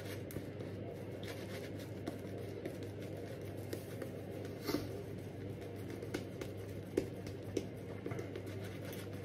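Zenith silvertip badger shaving brush working tallow shaving soap into a lather on a stubbled face: a faint, steady scratchy swishing with a few small clicks.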